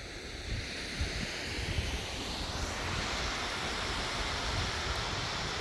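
Rushing water of a waterfall, a steady hiss that grows fuller and louder about halfway through, with wind buffeting the microphone in low rumbles.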